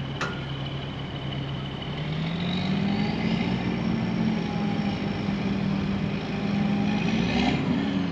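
Peterbilt roll-off truck's diesel engine running under load while its cable hoist pulls a buried skid steer. About two seconds in the revs climb, hold steady at the higher speed, then drop sharply near the end. There is a single click just after the start.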